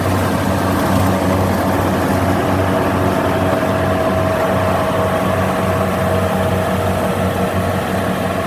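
Kubota DC70 rice combine harvester running steadily while harvesting, a loud even diesel hum with a steady high whine above it.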